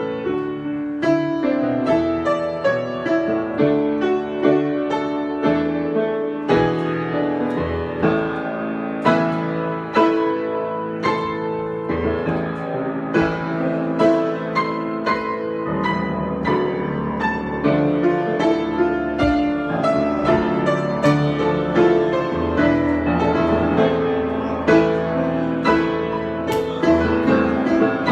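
Solo piano improvisation: a steady flow of struck notes and chords, each ringing and dying away, with a busy, rippling line over sustained lower notes.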